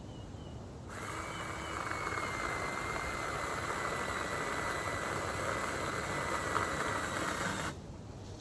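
A power tool running steadily for about seven seconds, a continuous whirring noise with a thin steady whine, starting abruptly about a second in and cutting off abruptly near the end.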